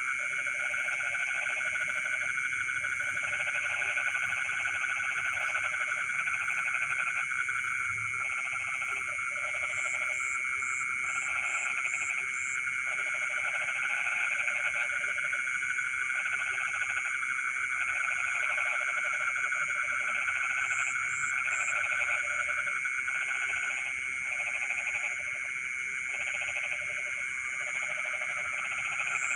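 Night chorus of many frogs: lower croaking calls come in bouts about a second long, over a steady high trilling. Short runs of very high chirps come in now and then.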